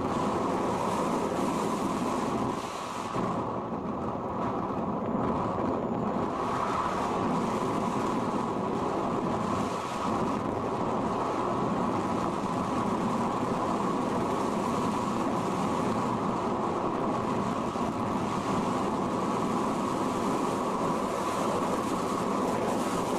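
Steady rush of air over an RC sailplane in flight, picked up by its onboard camera's microphone: a loud, even, rumbling noise with no clear pitch.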